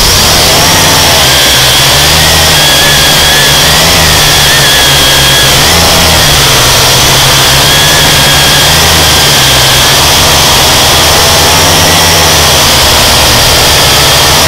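Small drone's electric motors and propellers whining steadily, heard from the camera on the drone itself, their pitch wavering up and down as the motors adjust speed in flight.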